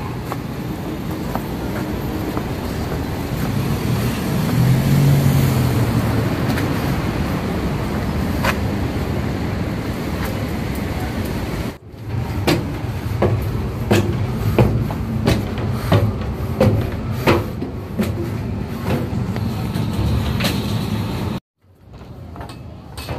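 Street traffic noise while walking, swelling about five seconds in. After a cut, footsteps clank on a staircase with metal-edged steps, about two sharp 'kan kan' knocks a second, until the sound cuts out near the end.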